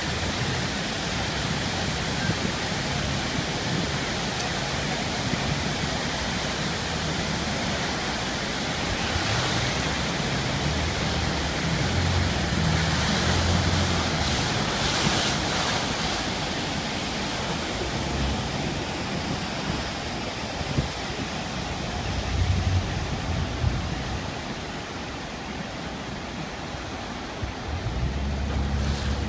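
Steady roar of the Iguazu Falls cascades and churning river water, with gusts of wind on the microphone. The low wind rumble grows louder near the end.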